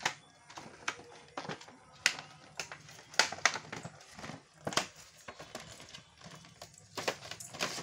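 Irregular sharp clicks and crackles of plastic and cardboard packaging as toy cap guns are pried off their display card.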